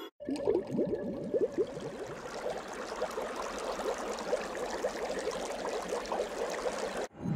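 Bubbling water sound effect: a dense stream of bubble blips and gurgles. It starts abruptly just after the beginning and cuts off suddenly near the end.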